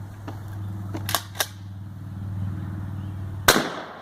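Weatherby shotgun fired once, about three and a half seconds in: a single loud blast with a short ringing tail. A few sharp clicks come in the seconds before it.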